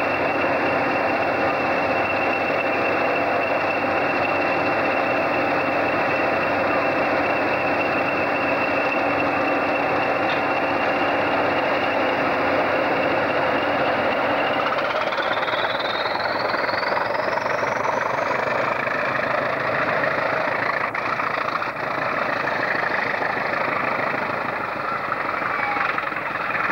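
Pair of British Rail Class 20 diesel locomotives running, their English Electric turbocharged engines giving a steady high whistle over the engine note; about fifteen seconds in the whistle rises sharply in pitch as power is applied and they pull away.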